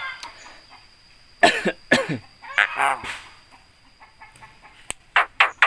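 Javan myna calling: a few loud, harsh calls falling in pitch, then, near the end, a quick run of short sharp notes at about four a second.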